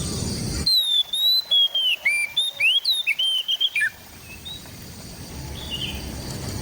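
Oriental magpie-robin (kacer) singing a fast run of loud, clear whistled notes with rising and falling glides, lasting about three seconds. It starts abruptly about a second in, cutting off a steady background hiss, and fades near the end.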